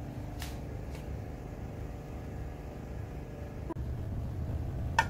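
A steady low hum with a few light clicks. The hum gets louder about three-quarters of the way in, and a sharp clink comes near the end.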